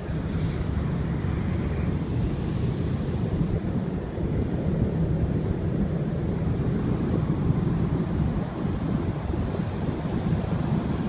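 Steady low rumble with wind noise on the microphone, of a ferry under way; no distinct events stand out.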